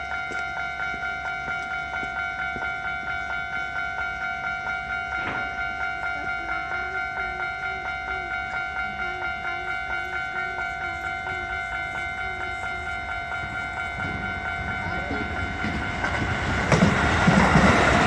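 Japanese level-crossing warning bell ringing in rapid, evenly repeating electronic dings. From about 14 s in, a Keisei train's approach rises underneath, and it passes loudly from about 17 s in.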